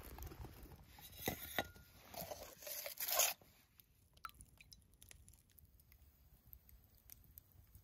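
Plastic food packaging being handled, crinkling and rustling in several quick bursts, loudest about three seconds in. After that only faint scattered clicks remain.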